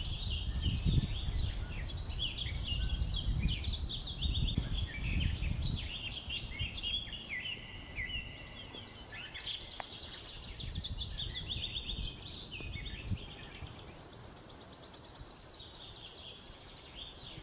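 Several birds chirping and singing over one another, with a fast high trill near the end. A low rumble runs under them for the first six seconds or so.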